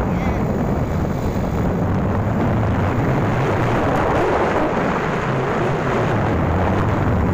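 Steady wind rumble on the microphone while riding a Yamaha Mio Sporty automatic scooter, with the scooter's engine running underneath.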